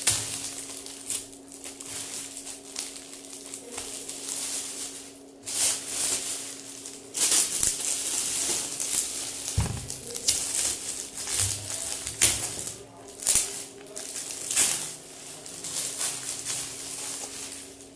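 Metallic foil gift wrap crinkling and tearing in irregular bursts as it is pulled off a picture frame.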